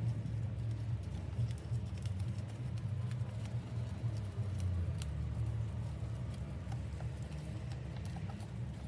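Handling of a bag and its packaging: light scratching and scattered small clicks over a steady low rumble.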